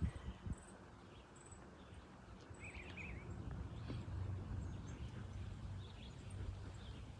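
Quiet outdoor ambience: a low steady rumble with scattered short, high bird chirps, and a brief warbling bird call about two and a half seconds in.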